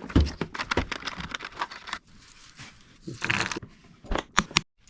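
Hands handling wiring and small parts: a quick run of light clicks and crackles, a short rustle a little past the middle, then a few sharp clicks that cut off abruptly near the end.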